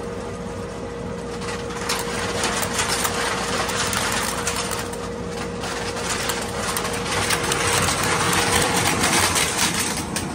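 Can crusher running: a steady machine hum with crushed aluminum cans clattering as they shoot out of a steel pipe into a steel roll-off box.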